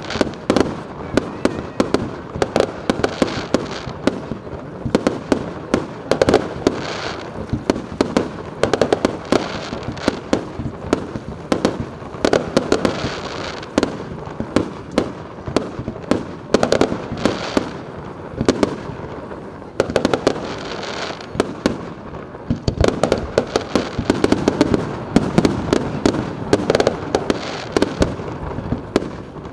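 Fireworks display: aerial shells bursting in a rapid, continuous barrage of sharp bangs, several a second, over a constant background of noise from the shells going off.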